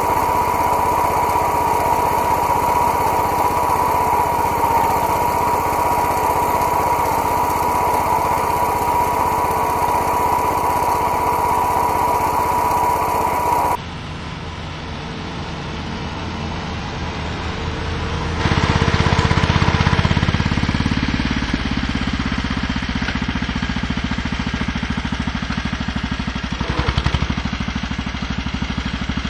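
Small engine of a homemade garden tractor running steadily under load as it pulls a two-bottom plow through garden soil. It is heard close up with a steady high whine at first, then drops suddenly in level and builds again as the tractor comes nearer, loudest about two-thirds of the way in.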